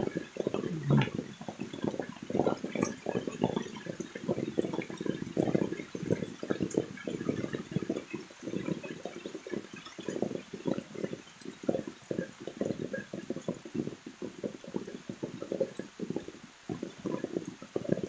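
Water splashing and gurgling in a constant, irregular patter.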